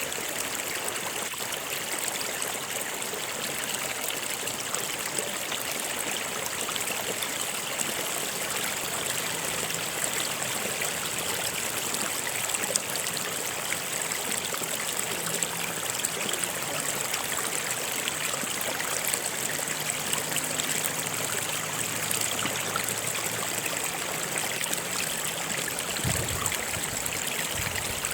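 Stream water flowing and trickling over rocks in a steady, unbroken rush.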